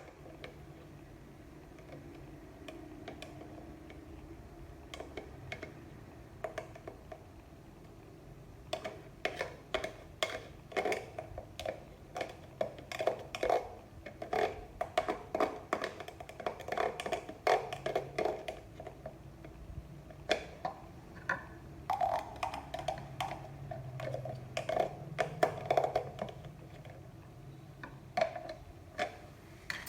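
Quiet for the first few seconds, then a long run of irregular light knocks and clicks, several a second at times, as hard objects are handled and set down.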